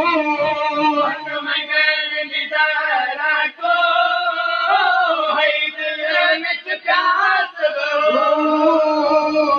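A man's voice chanting a noha through a microphone, holding long, slowly wavering notes with short breaks between phrases.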